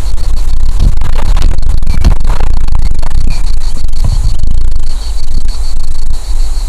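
Wind buffeting the microphone with a loud low rumble, and rustling. Under it, grasshoppers chirp in a fast, steady pulse of about five beats a second. A bird gives a few short chirps.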